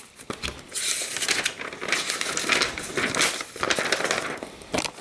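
Stiff paper rustling and crinkling in irregular bursts as a folded paper test target is pulled out and unfolded by hand.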